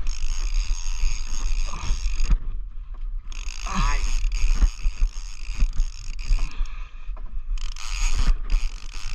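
Penn Squall 30LW conventional reel being cranked under load to reel in a snagged paddlefish, its gears clicking and whirring with a couple of short pauses, over a low rumble.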